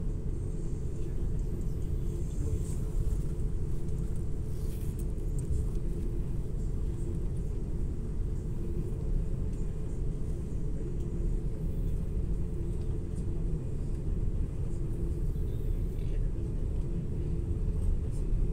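Steady low rumble inside the cabin of an Airbus A330-900neo taxiing, its Rolls-Royce Trent 7000 engines at low taxi power and the airliner rolling along the taxiway.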